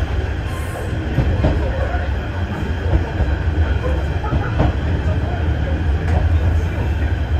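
Cabin sound of a JNR KiHa 30 diesel railcar under way: its DMH17H diesel engine runs with a steady low drone under wheel-and-rail noise, with a few faint clicks from the track.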